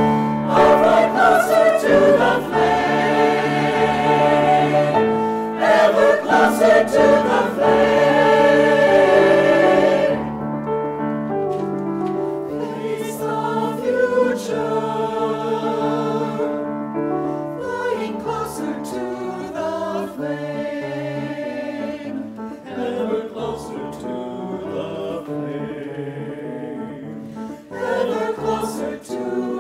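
Mixed choir singing a choral piece with grand piano accompaniment, full and loud for the first ten seconds, then softer, swelling again near the end.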